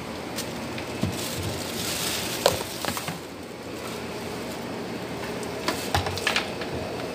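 Water spray splashing over wet surfaces, a steady hiss broken by a few clicks and knocks, the sharpest about two and a half seconds in.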